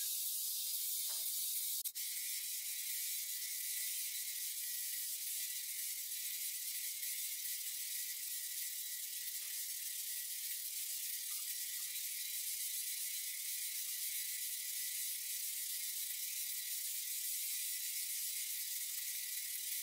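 Angle grinder with a homemade power-file sanding-belt attachment running steadily: an even high hiss with a faint steady whine, broken briefly about two seconds in.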